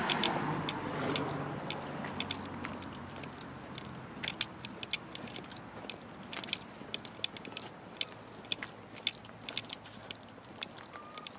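Thin plastic carrier bag crinkling in quick, irregular crackles as it swings in the hand of someone walking. A passing car fades out over the first few seconds.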